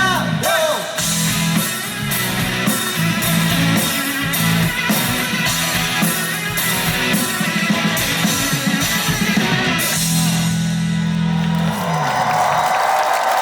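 Live rock band playing an instrumental passage with electric guitars, bass and a steady drum kit beat. About ten seconds in the drumming stops and the band holds a chord, the bass note sliding down near the end.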